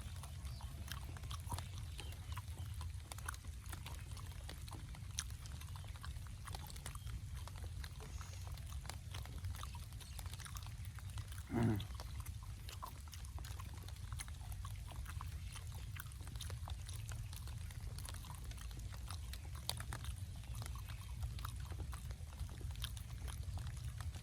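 A person eating: chewing and smacking, with scattered small clicks over a steady low rumble. There is one short pitched sound about halfway through.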